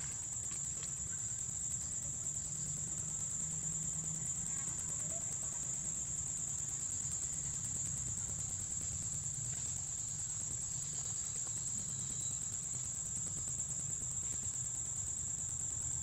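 Insects chirring in a steady, high, unbroken drone, with a low steady rumble underneath.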